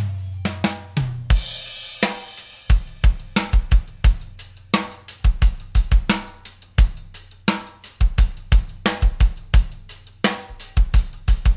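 Background music: a drum-kit beat with kick drum, snare and hi-hat over a low bass line.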